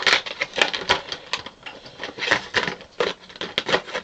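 Clear plastic marker pack and markers clicking and rattling as one marker is worked out of the pack by hand, a run of irregular sharp clicks and rustles.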